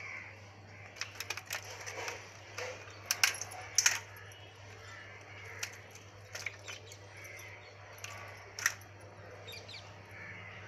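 Irregular sharp clicks and clinks as live blue crabs are handled on a steel plate and their top shells are pried off, with shell and claws knocking against the metal; the loudest clicks come about three to four seconds in and again near the end.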